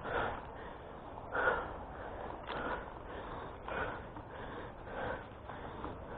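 A person breathing hard close to the microphone, a breath about every second, one stronger near the middle.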